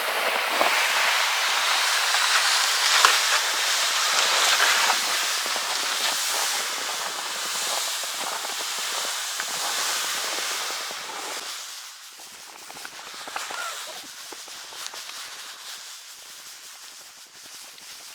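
A loaded sled being dragged across snow: a steady scraping hiss with irregular crunches, loud at first and then quieter about twelve seconds in.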